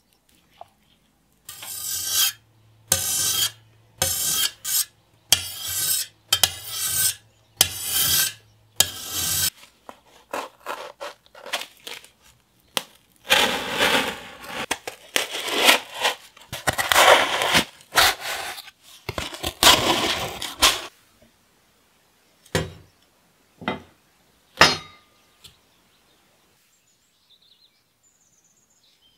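Steel bayonet blade cutting through a piece of cardboard, a dense run of scraping and tearing strokes for several seconds. Before it come about eight regular rasping strokes, and near the end three or four sharp clicks of small metal being handled.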